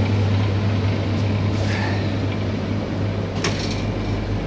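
Steady low hum of a shop's refrigerated display cabinet running, with a light click about three and a half seconds in.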